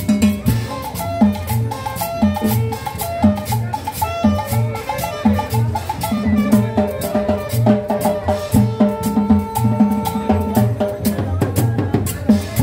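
Latin dance music with drums, percussion and a bass line, keeping a steady beat.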